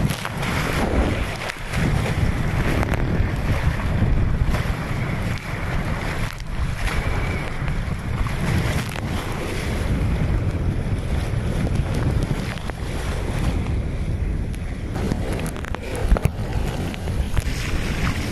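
Wind buffeting the microphone in a steady low rumble over the rush and splash of choppy sea water along the hull of a small sailboat under way at speed.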